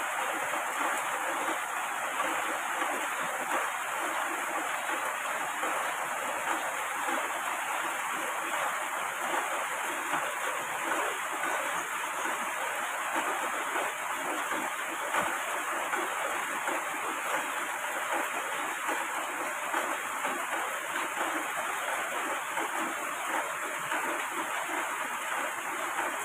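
Heavy rain falling steadily, a continuous even hiss.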